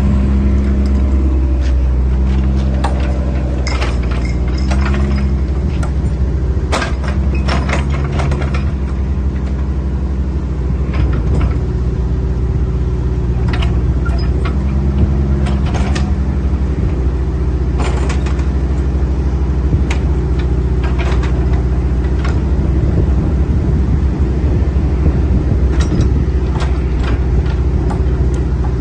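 Kubota KX155-3SZ tracked excavator's diesel engine running steadily, with a higher note that comes and goes as the hydraulics work. Scattered sharp knocks and clanks come from the machine.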